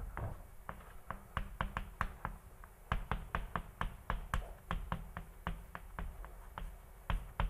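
Chalk tapping and scratching on a blackboard as words are written by hand: an irregular run of sharp clicks, several a second, one for each stroke.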